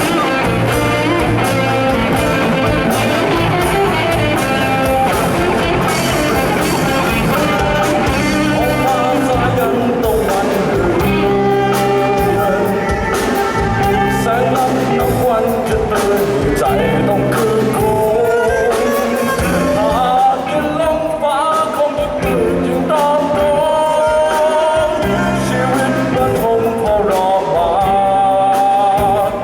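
Band playing a rock-style song: a singer's melody over guitar.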